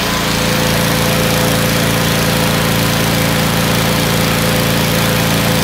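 Engine running at a steady, unchanging speed.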